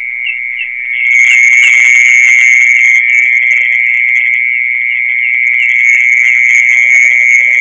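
Steady, shrill, whistle-like trill of a mole cricket calling from its burrow, the sound popularly taken in Indonesia for an earthworm's song. It gets louder and brighter about a second in, with a faint regular pulsing over the tone.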